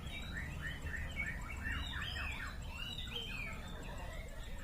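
White-rumped shama singing a fast, continuous run of varied chirps and short downward-sliding whistles.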